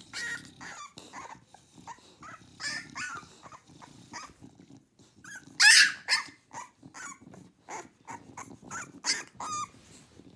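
Young English bulldog puppy giving a string of short, high-pitched yelps and squeals, with one much louder squeal about halfway through.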